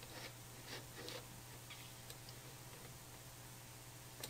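Faint computer mouse clicks and scroll ticks, a few scattered through the first half, over a low steady hum.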